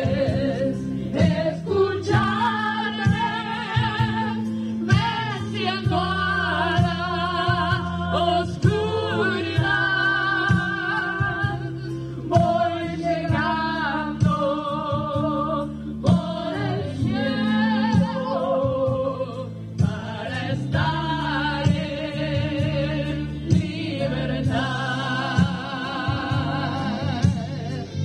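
A small choir of mixed voices singing a slow song with long held notes, over sustained accompanying chords.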